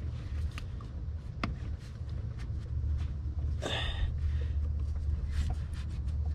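Scattered light clicks and taps of gloved hands handling parts and hoses in a car's engine bay, over a steady low hum, with a short scraping rustle about four seconds in.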